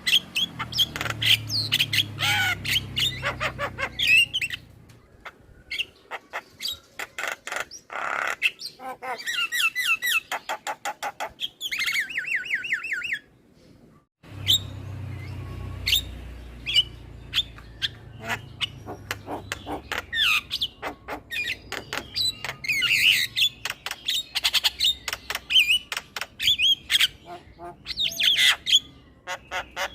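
Male Javan myna (jalak kebo) singing its chattering song: a rapid mix of sharp clicks, harsh squawks and quick whistled phrases, broken by a short silent pause a little before halfway.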